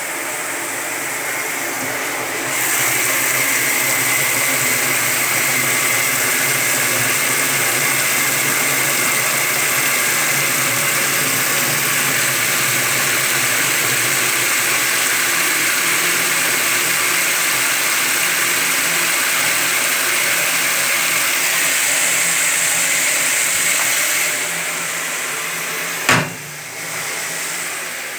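Steady whirring, hissing noise that gets louder a couple of seconds in and eases off near the end, followed by a single sharp knock.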